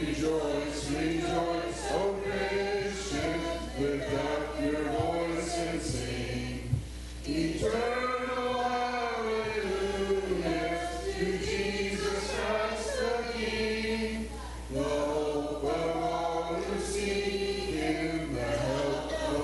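Congregation singing a hymn together in phrases, with held low accompaniment notes underneath and short breaks between lines.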